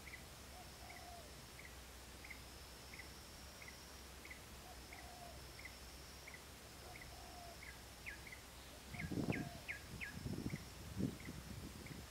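Rural outdoor ambience: a short bird-like chirp repeating about every half second over a steady high insect drone. A few louder rustling thumps come between about nine and eleven seconds in.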